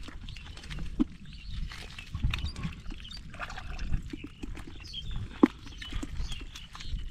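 Wet mud squelching and shallow water splashing as hands and bare legs work through soft mud, with scattered clicks and snaps throughout.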